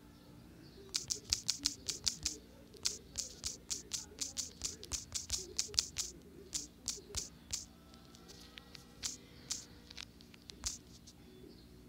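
Rapid clicks of typing on a phone's touchscreen keyboard, about four to five taps a second for several seconds, then a few separate taps near the end as an emoji is chosen.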